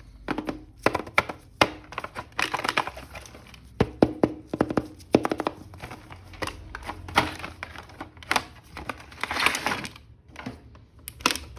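Plastic action-figure pieces clicking and knocking as they are handled, with crinkling of plastic packaging, twice in longer stretches.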